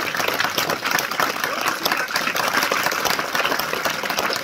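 A crowd of schoolchildren applauding: many hands clapping at once in a dense, steady stream.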